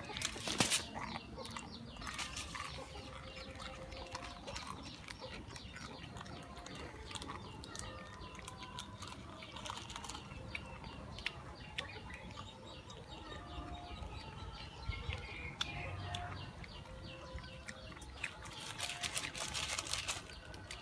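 A cat eating noodles: scattered small chewing and lapping clicks, with faint chicken and bird calls in the background.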